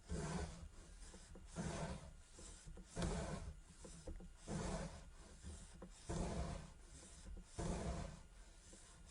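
Kinetic sand being worked in repeated strokes, each a gritty rubbing crunch about every one and a half seconds, with softer scraping between them.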